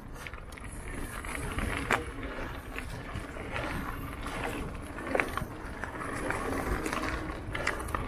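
Mountain bike rolling down a dirt singletrack: tyre noise over loose dirt and stones with the bike rattling, and a few sharp knocks over bumps.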